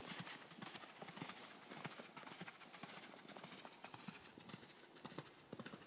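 Hoofbeats of a ridden horse on an arena's sand footing, faint and fading as the horse moves away.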